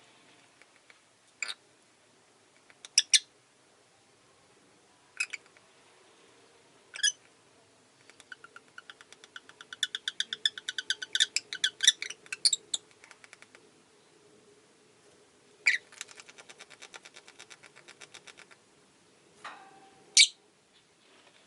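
Rosy-faced lovebirds calling: short, sharp shrill calls every couple of seconds, and in the middle a fast chattering run of many quick chirps, with a fainter run soon after.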